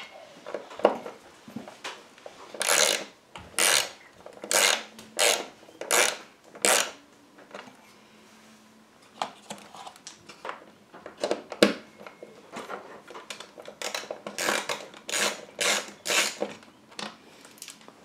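A quarter-inch socket driver on an extension turning out refrigerator dispenser mounting screws: a series of short, sharp tool strokes about one a second, in two runs with a pause in the middle.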